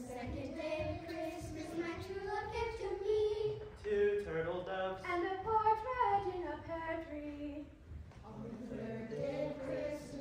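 A group of children singing together unaccompanied, with women's voices among them, in held, sung phrases; there is a brief breath pause between phrases a little before the end.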